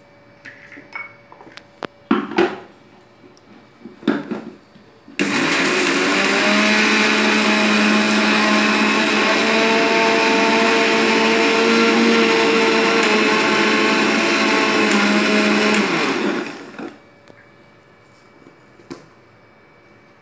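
Electric mixer grinder with a small steel jar grinding sugar and cardamom: it starts about five seconds in, runs steadily and loudly for about eleven seconds, then winds down. A few knocks and clicks come before it starts.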